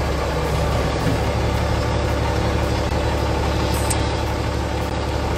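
Bell 429 helicopter's turbine engines and rotor running steadily on the ground, heard from inside the cabin, as a constant low hum with a whine over it.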